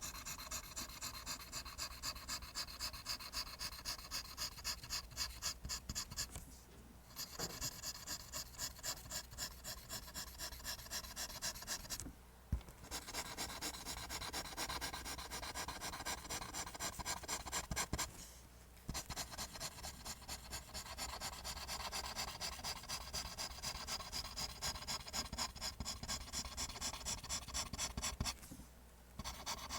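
Pencil drawing lines on paper: fast, even back-and-forth scratching strokes, about four a second, stopping briefly three or four times.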